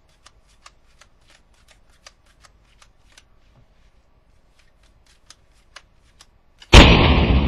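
Playing cards being dealt and flipped onto a table: a run of light snapping clicks, three or four a second, thinning out after about three seconds. Near the end a sudden loud gunshot bang cuts in and dies away slowly.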